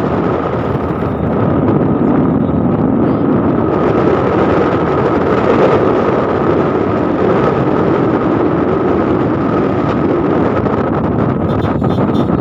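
A vehicle travelling steadily: continuous engine and road noise with a constant thin whine above it.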